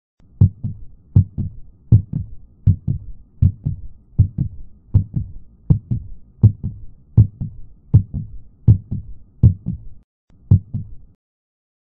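Heartbeat sound effect: a steady lub-dub, each beat a low double thump with the second stroke softer, at about 80 beats a minute. It breaks off briefly just after ten seconds, gives one more beat and stops.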